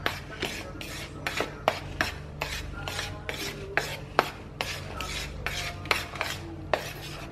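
A metal spoon stirring dry tapioca flour in a plastic bowl, scraping and clicking against the bowl about two or three times a second.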